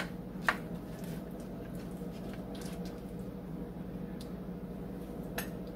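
Plastic serving spoon scooping chicken and stuffing casserole from a glass baking dish: soft squishing and scraping, with a sharp click about half a second in. A steady low hum runs underneath.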